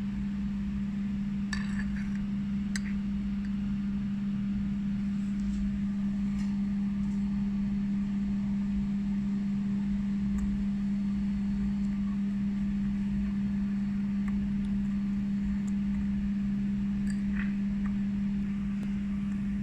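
A steady low hum, one even tone that does not change, with a few faint light clicks about two seconds in and again near the end.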